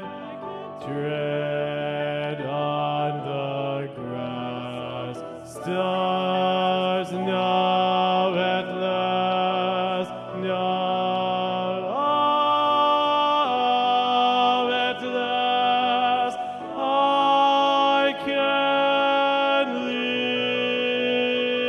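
Mixed SATB choir singing long held chords that shift every second or two, with no clearly sung words.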